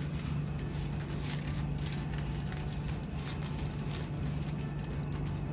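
A steady low hum with many small, scattered light clicks and rustles over it.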